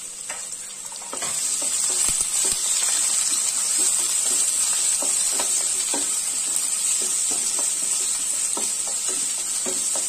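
Sliced onions sizzling in hot ghee in a non-stick pan, getting louder about a second in. A wooden spatula scrapes and taps through them as they are stirred.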